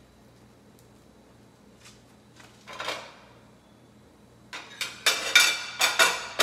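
Kitchen utensils and cookware clattering and scraping, several sharp knocks in quick succession in the last two seconds, after a mostly quiet stretch broken by one short scrape.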